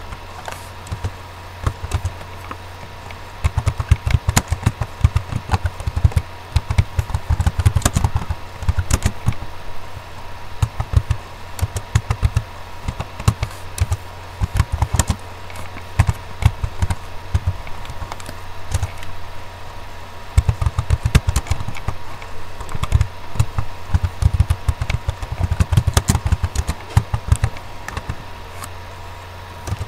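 Typing on a computer keyboard: runs of quick keystroke clicks with short pauses between, over a steady low hum.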